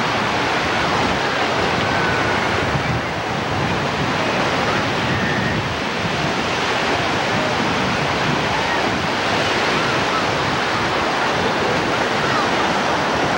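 Ocean surf breaking and washing in over the shallows in a steady, unbroken rush.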